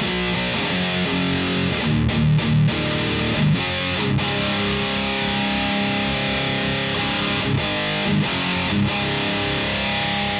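Heavy distorted electric guitar riffing through a thiSHEAvyearth Grim pedal, sustained chords broken by a few short choked stops.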